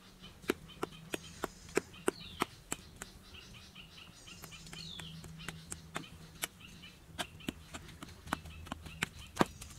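Hand hoes chopping into hard, dry, packed soil: a run of sharp strikes, about three a second at first, then more uneven as two diggers work.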